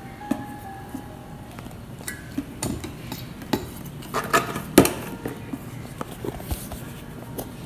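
A utensil scraping and clinking against a mixing bowl as pancake batter is stirred, in irregular knocks with one louder clack a little before five seconds in.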